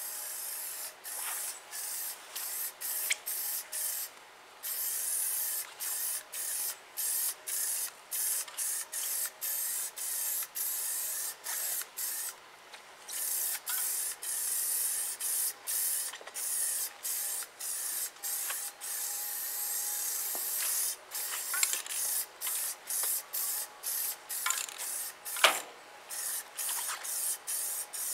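Aerosol spray paint can hissing in a long series of short bursts with brief breaks as paint is sprayed. One sharp knock near the end.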